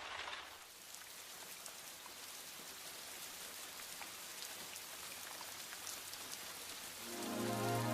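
Steady rain falling, a soft hiss with scattered drips. Music fades in near the end.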